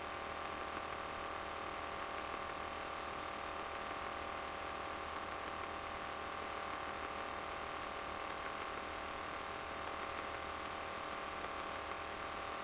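Steady drone of an RV-9A light aircraft's piston engine and propeller in cruise flight, heard from inside the cockpit, holding the same pitch throughout.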